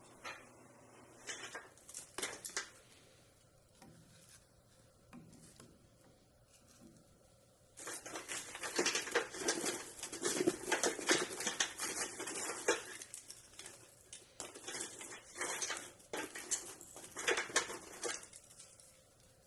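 Dry split kindling sticks knocking and rustling against each other as they are handled: a few scattered knocks at first, then a dense run of clatter for about ten seconds that stops suddenly.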